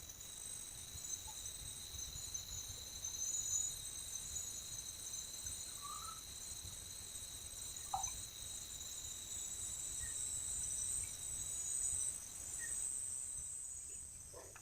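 A steady, high-pitched insect chorus buzzing at two pitches without pause, with a few faint short chirps now and then.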